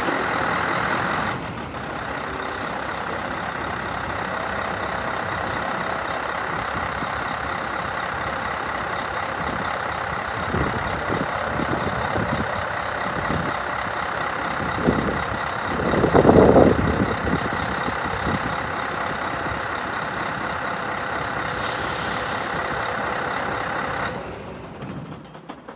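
Scania R164 truck's 16-litre V8 diesel running steadily as the truck manoeuvres slowly. A louder surge comes about two-thirds of the way through, and the sound fades away at the very end.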